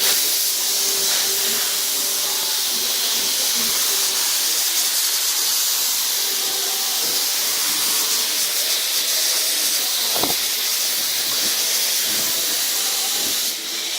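Paint spray gun spraying paint with a steady, continuous hiss.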